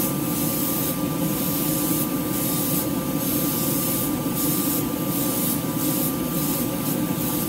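Airbrush spraying a light tack coat of acrylic paint, hissing in a series of short bursts about one a second, over the steady hum of the spray booth's exhaust fan.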